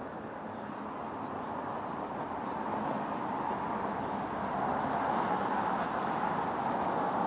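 City road traffic, a steady rush of tyre and engine noise that grows louder over the last few seconds as a vehicle approaches.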